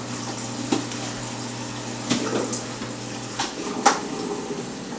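Fresh salt water running from a Rio pump's hose into a saltwater aquarium, with a low pump hum that stops about three and a half seconds in. A few sharp clicks are heard.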